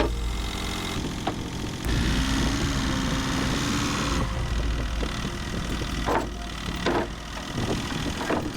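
Diesel engine of heavy equipment running steadily, pulling harder for a couple of seconds, with a few sharp clunks in the last few seconds.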